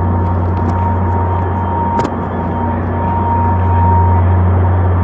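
Steady low drone of idling Metra diesel locomotives in an enclosed train shed, with a thin high whine above it and one sharp click about two seconds in.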